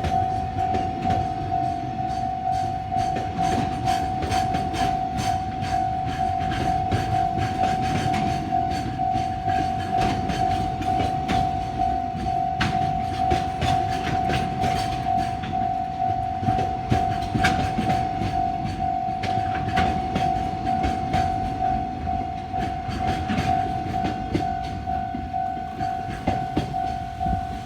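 Japanese level-crossing bell ringing steadily with a pulsing tone, over a long freight train passing with its wagons rumbling and clacking over the rail joints.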